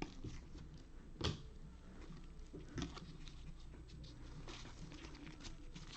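Faint handling of trading cards: soft rustling and light taps as cards are slid one behind another, with a sharper click about a second in and another near three seconds.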